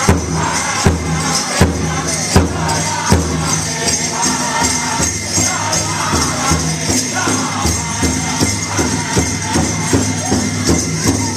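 Powwow drum group singing over a steady unison beat on a big drum, with the jingling of dancers' ankle bells.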